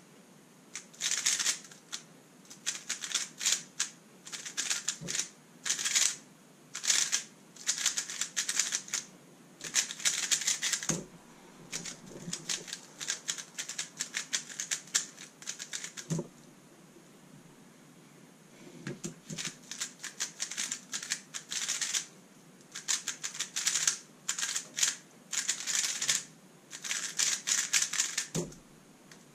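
Thunderclap v3 M 3x3 speedcube being turned fast: bursts of rapid plastic clicking from the layers snapping round, broken by short pauses, with a few soft knocks.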